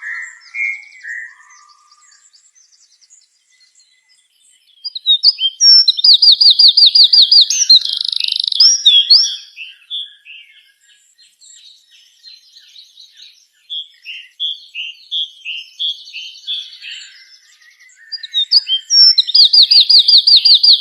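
A songbird singing in varied, warbling phrases, with loud rapid trills of evenly repeated notes about six seconds in and again near the end, and softer scattered notes in between.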